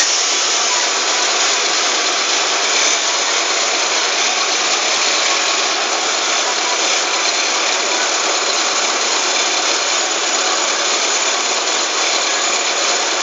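Tyre bead-remover machine running with a steady, even mechanical noise that does not change.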